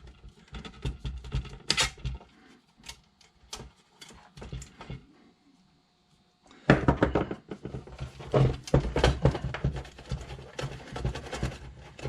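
Clicks and knocks of an ATX computer power supply's metal case and small parts being handled on a workbench, then, from about seven seconds in, a stretch of busier clattering and rattling as the case is worked open.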